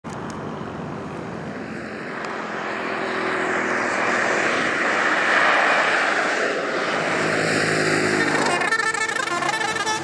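Buses and other traffic passing on a highway, engine and tyre noise swelling to a peak about halfway through. Near the end a bus pressure horn starts, sounding several tones at once.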